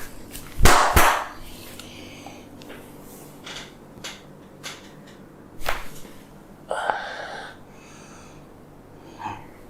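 Hand head massage: one loud hit about a second in, then scattered soft clicks and taps, and a short breathy rush of noise in the second half.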